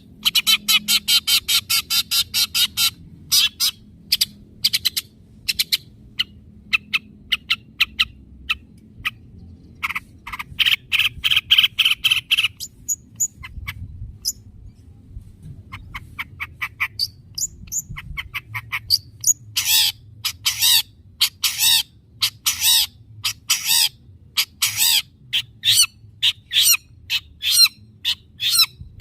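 Long-tailed shrike (cendet) giving loud, harsh, rapid calls in runs of several per second. The runs break off briefly about halfway, then resume in a dense burst near the end. It is a lure recording of shrike calls, meant to provoke a silent caged shrike into singing.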